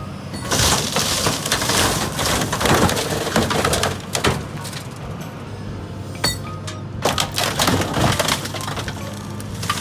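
A car being crushed by a CAT 325 excavator: glass breaking and body panels crunching in dense crackling clusters, easing off mid-way and picking up again near the end, over the excavator's diesel engine running steadily.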